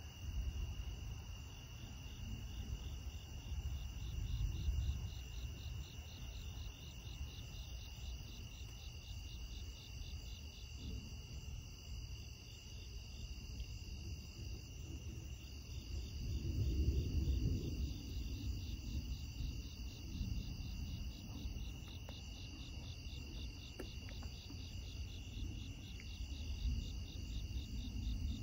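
Insects chirping steadily in a fast, even pulse with a constant high trill, over a low rumble of distant thunder that swells briefly about four seconds in and more strongly just past the middle.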